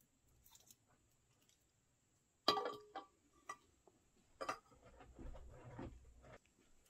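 Small knife clinking against a steel bowl as something is cut into it: one sharp ringing clink about two and a half seconds in, then a few lighter clicks. Low rustling of movement follows.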